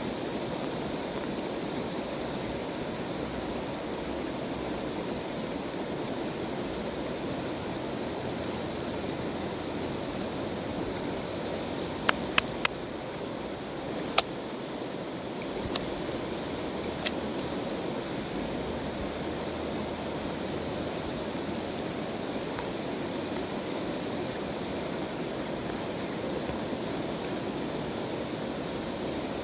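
A river running steadily, making a constant rushing sound. A little before the middle there are a few sharp clicks and taps, three close together and then one more.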